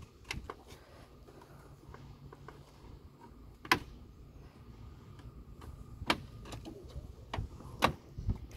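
Plastic radiator fan shroud being worked by hand in a car's engine bay: a handful of sharp knocks and clicks as it bumps against the radiator and surrounding parts, the loudest about four seconds in.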